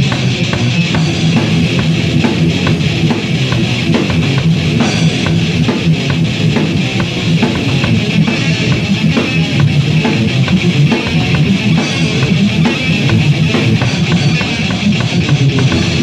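Thrash metal band playing an instrumental passage with electric guitars, bass and drum kit, with no singing, from a late-1980s demo tape recording.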